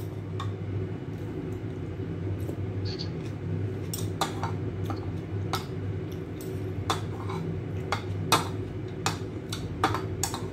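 Metal chopsticks and a metal spoon clinking against a ceramic bowl of noodle soup, in scattered light clinks about once a second, over a steady low hum.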